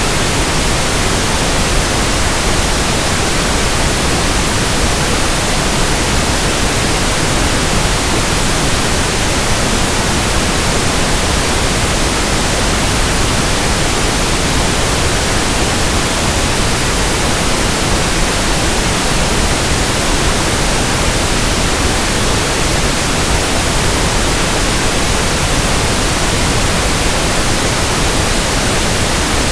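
Pink noise test signal for tuning an audio system: a steady, unchanging hiss spread evenly across the whole range, with no breaks.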